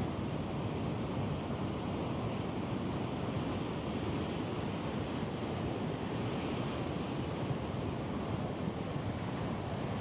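Ocean surf, a steady, even wash of waves with no separate breaking crashes standing out.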